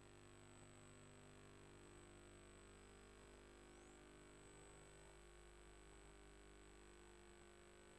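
Near silence: a faint steady electrical hum with a thin high whine above it.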